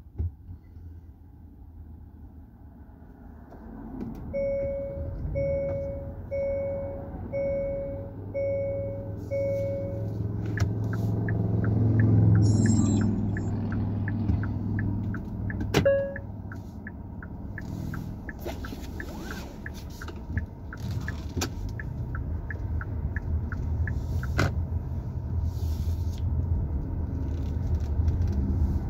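Car engine and road rumble heard from inside the cabin, swelling about twelve seconds in. A warning chime beeps six times about a second apart, then a steady ticking of about one and a half clicks a second, the car's turn-signal indicator, runs on for about fifteen seconds, with one more chime beep partway through.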